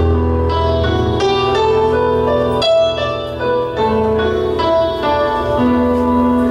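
Live prog rock band: a Yamaha Motif keyboard plays a melodic passage in a piano-like tone, the notes changing several times a second over held low bass notes, with no drums.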